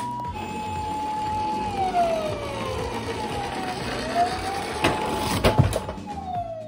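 Ambulance siren sounding one steady tone that slides down in pitch, climbs back up, holds, and slides down again near the end. A few sharp knocks come about five seconds in.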